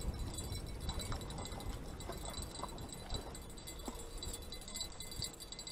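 Wind rumbling and buffeting against the microphone, with faint high tinkling scattered through it.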